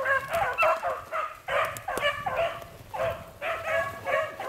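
A pack of beagles baying, short repeated hound cries from several voices overlapping: hounds in full cry running a rabbit.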